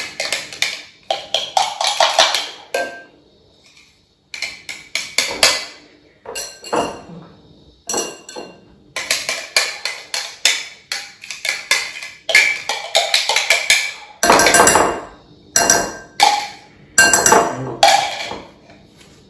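Metal spoon scraping and knocking against a plastic food processor bowl, working minced garlic out of it: quick runs of sharp knocks and clicks with short pauses between.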